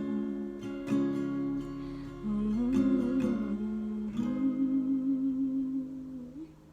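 Closing bars of an acoustic song: acoustic guitar chords strummed a few times and left to ring, with the singer humming a long wavering note over the last one, all fading out about six and a half seconds in.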